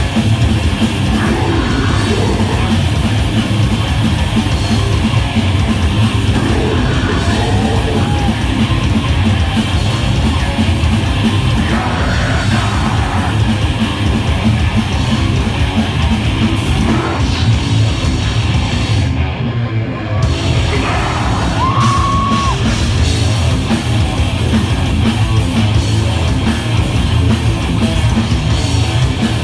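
Death metal band playing live at full volume: heavily distorted electric guitars and bass over fast, dense drumming, with deep growled vocals. The cymbals and high end drop out briefly about two-thirds of the way through.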